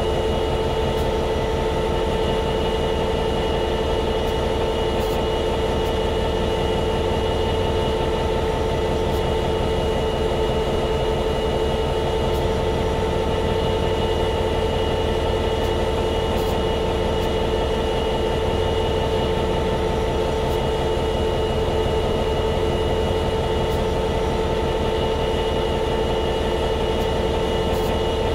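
EMD 12-710G3C-EC twelve-cylinder two-stroke diesel prime mover of an F59PHI locomotive idling steadily: a fast low pulse under a constant whine.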